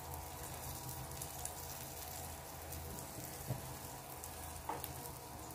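French toast (egg-soaked bread) frying in melted butter on a flat nonstick griddle pan over a low flame: a quiet, steady sizzle with fine crackling, and a couple of small clicks.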